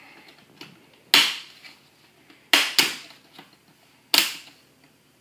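Plastic screen bezel of a Gateway NE56R49u laptop snapping free of its retaining clips as it is pried off by hand: four sharp clicks, one about a second in, two in quick succession near the middle, and one near the end.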